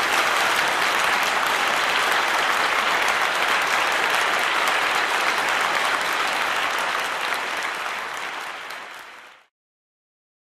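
Audience applauding, a dense steady clapping that fades near the end and then stops abruptly.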